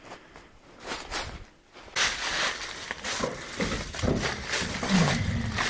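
Footsteps crunching through dry leaf litter and loose rock, with scattered small knocks and crackles, much louder and closer from about two seconds in.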